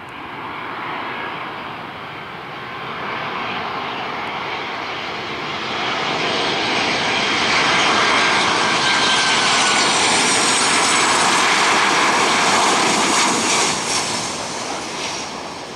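Boeing 737-800's CFM56-7B jet engines on landing approach, growing louder as the airliner comes close, with a high whine that slides slowly down in pitch. The sound fades after about fourteen seconds, as the plane is rolling on the runway.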